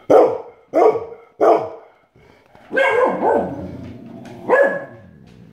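A dog barking six times: three sharp barks in quick succession, then two more close together and a last one about four and a half seconds in, each dropping in pitch.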